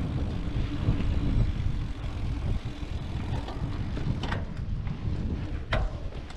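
Wind buffeting the microphone and tyres rumbling over a dirt trail on a moving mountain bike, with two sharp clacks from the bike about two-thirds of the way in.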